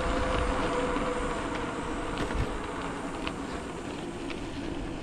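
Bicycle coasting downhill on a concrete path: wind rumbling on the microphone over steady tyre noise, with a faint hum and a few light ticks and rattles from the bike.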